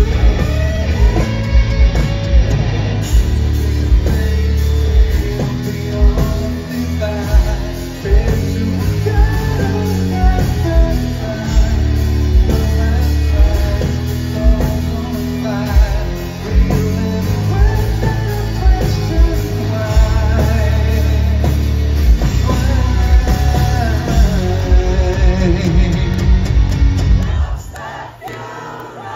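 Rock band playing live with a male lead singer, drums, bass and guitars. The band stops abruptly near the end.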